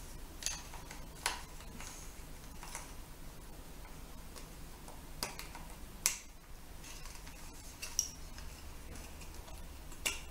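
Small sharp clicks and taps of a metal pick tool working desoldered electrolytic capacitors loose from a TV power board. The clicks come singly, a second or two apart, over a low steady hum.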